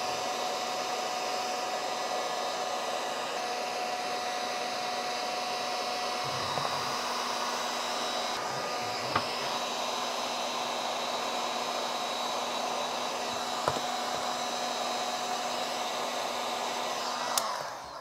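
Electric heat gun blowing steadily while shrinking heat-shrink tubing over a speaker cable's Y-joint. It is switched off near the end and winds down.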